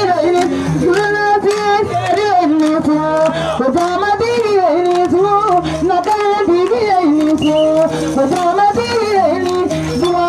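Live Malian balafon music: a lead voice sings a wavering, ornamented melody over steady low notes and many quick struck strokes.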